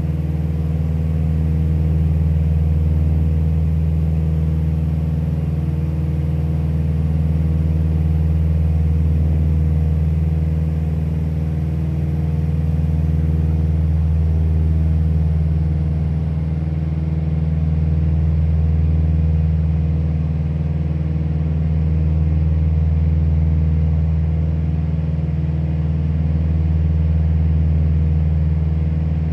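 Light propeller airplane's piston engine and propeller droning steadily at cruise, heard inside the cabin, the drone slowly swelling and fading every few seconds.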